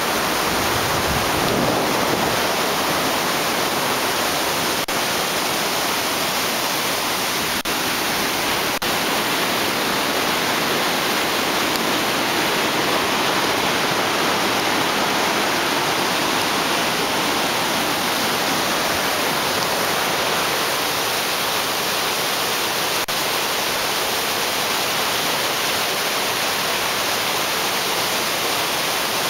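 Mountain river rushing through whitewater rapids: a steady, unbroken rush of water.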